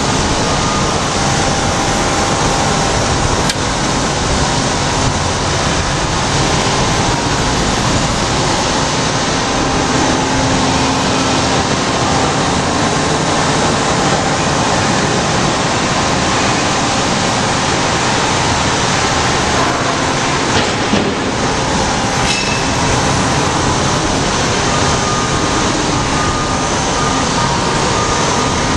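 Hyd-Mech S-25P swing-frame horizontal band saw running and cutting rectangular metal tubing under flowing coolant: a steady, unbroken machine noise with faint steady tones.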